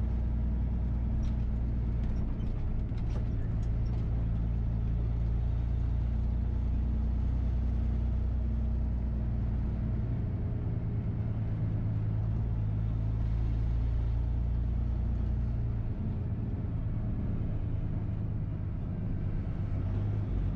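Loaded dump truck's diesel engine running steadily on the move, with road noise, heard from inside the cab. The engine note changes a couple of times, and a few light clicks come between about one and four seconds in.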